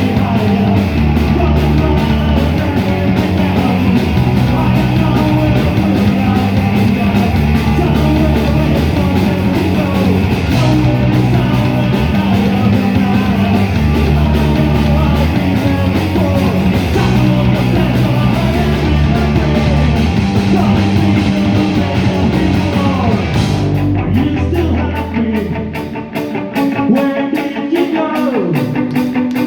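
Rock band playing live: distorted electric guitar, bass and drums at full volume. About 24 seconds in the bass drops out and the band plays a sparser, choppier passage.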